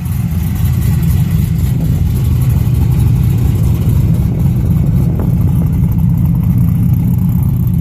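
Pontiac Firebird's engine running steadily with a deep, even rumble.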